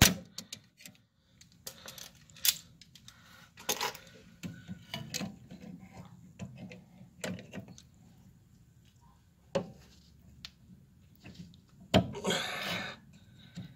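Scattered metallic clicks and clinks of hand tools working a spring off a car's rear brake assembly, with a brief, louder rattle about twelve seconds in.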